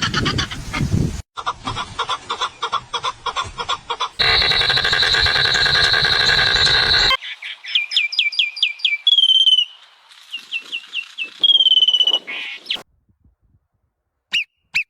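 Bird calls in a run of separate clips spliced together: first rapid chattering, then a dense stretch of calls, then a bird giving clear whistled chirps that fall in pitch, repeated in quick series, with one long held whistle twice. It goes silent about two seconds from the end, and a single short chirp follows.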